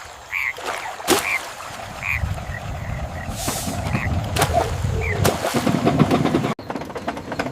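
Cartoon frog croaks repeating about once a second, with a few sharp clicks and a low rumble building underneath from about two seconds in.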